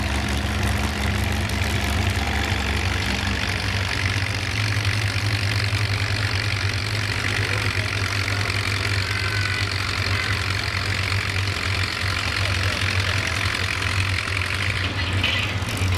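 Antique farm tractor's engine running steadily under load as it pulls a weight-transfer sled in a slow-speed class, with an even low drone.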